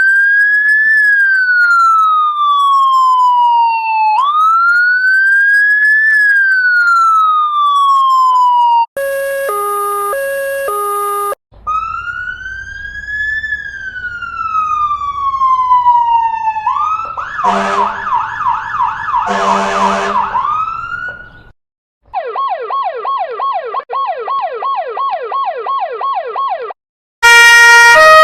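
A run of different US and German emergency-vehicle sirens, one after another with brief gaps. It goes: a slow wail rising and falling twice; a short two-tone hi-lo; another wail that breaks into a fast warbling yelp; a rapid yelp of quick repeated sweeps; and near the end the loudest of them, a stepped multi-note two-tone.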